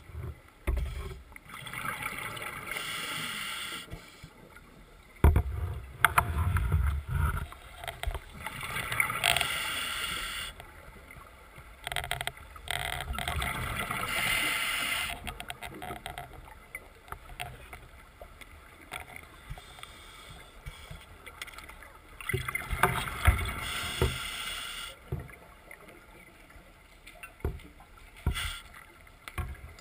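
A scuba diver breathing underwater through a regulator, several breaths in turn: a hissing inhale lasting two or three seconds, then a low bubbling rumble as the exhaled air escapes.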